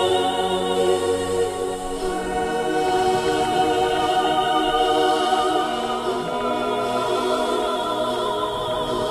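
Background music: a choir singing long held chords with a wavering pitch.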